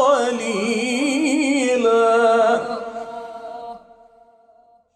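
Male Quran reciter chanting in melodic tajwid style, winding the voice through ornamented turns and then holding a long final note that fades out about four seconds in.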